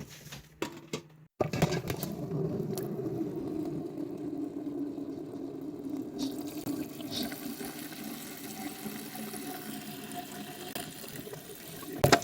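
Water running steadily into a container, starting abruptly about a second and a half in, as when a pet fountain's reservoir is filled from a tap.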